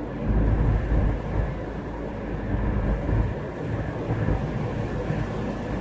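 Car driving along a road, heard from inside the cabin: a steady low rumble of tyres and engine, swelling louder for about a second near the start.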